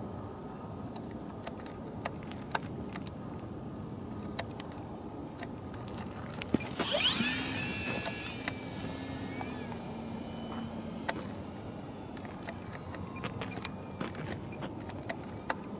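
Electric motor and propeller of a model glider spinning up about six and a half seconds in, with a rising whine that levels into a steady high whine and hum. It runs loudest for a couple of seconds, then eases to a lower drone that dies away a few seconds later. Light wind hiss and scattered small clicks fill the rest.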